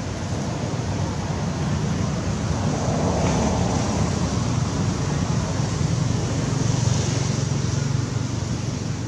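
Steady rumble and hiss of road traffic, swelling slightly twice as vehicles pass.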